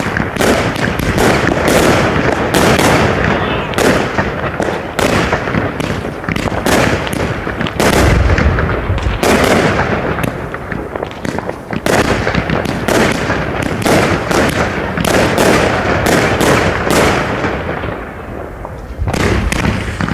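Category F2 consumer firework cakes firing, recorded on a phone microphone: a dense, loud run of bangs and crackling shots, several a second, easing briefly near the end before picking up again.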